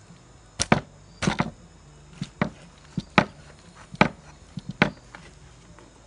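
Large knife chopping down through a whole roast bird onto a wooden cutting board, splitting the carcass. It makes a series of sharp knocks, often two in quick succession.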